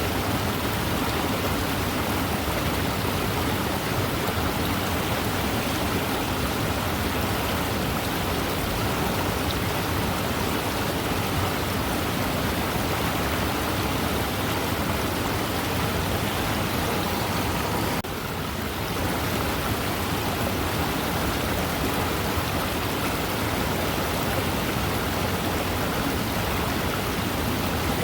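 Waterfall: a steady rush of falling, splashing water, with a brief slight dip in level about two-thirds of the way through.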